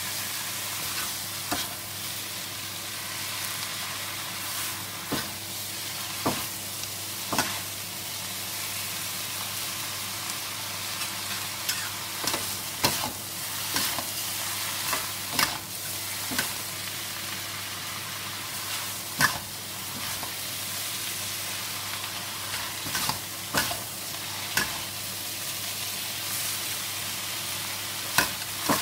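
Shredded cabbage, carrot and vermicelli sizzling as they are stir-fried in a wok, with irregular sharp clanks and scrapes of two metal spatulas against the wok.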